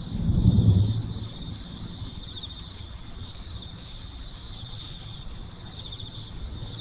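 Steady high chirring of crickets, with a deep rumble swelling and fading within the first second.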